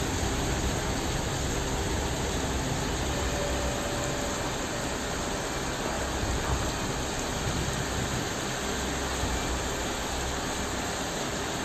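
Fast-flowing floodwater rushing past, a steady, even noise that stays the same throughout.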